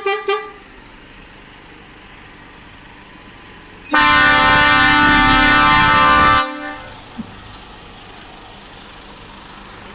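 Truck air horn: the last of a quick series of short toots ends just after the start. About four seconds in, a loud horn sounds one long blast of about two and a half seconds, then cuts off.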